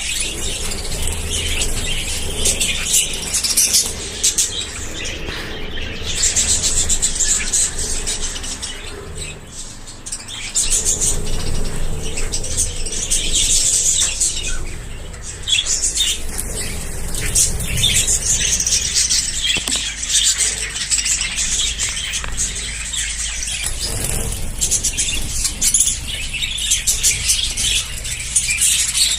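A colony of budgerigars chattering and chirping continuously, many birds calling at once in a dense, high-pitched warble.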